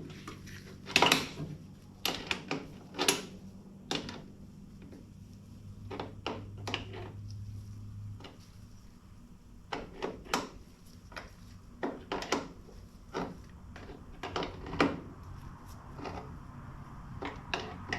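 Hand tools clicking and knocking at irregular intervals while the motorcycle's rear wheel is being loosened and aligned, over a low steady hum.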